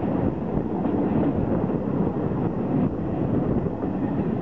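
Passenger train coaches running along the track, heard from an open coach window: a steady rolling rumble of the wheels on the rails, with wind on the microphone.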